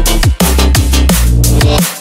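Drum-and-bass music with a deep bass line and hard drum hits, dipping briefly twice.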